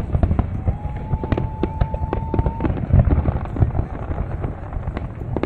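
Fireworks going off: a dense, irregular run of bangs and crackles with low rumbling between them. A steady high tone, like a whistle, joins about a second in and holds for about two seconds.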